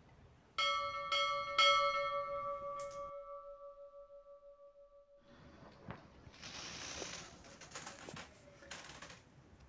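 A bell-like chime struck three times about half a second apart, its ringing tones dying away over about four seconds. Near the end comes a few seconds of rustling with light clicks.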